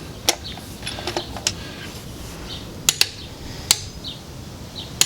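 A few scattered, sharp metal clicks and taps from tools being handled, about six over five seconds, with two close together about three seconds in, over a low, steady background noise.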